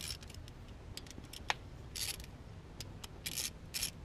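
Small hand ratchet with a socket on a long extension clicking in several short bursts as the two injector hold-down bolts are loosened, with one sharp tick about a second and a half in.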